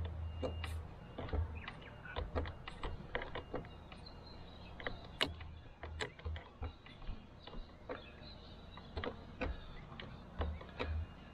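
Small socket ratchet clicking in short, irregular strokes as it tightens the nut on a car battery's positive terminal clamp, with a few low thuds between the clicks.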